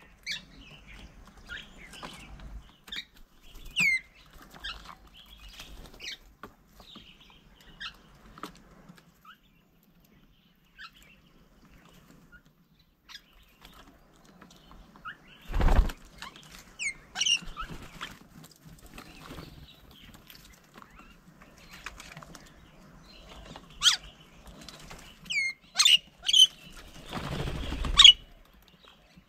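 Birds at a feeding table: scattered short, sharp chirps that sweep downward, some in quick runs of two or three, with a single thump about halfway through and a brief rustle near the end.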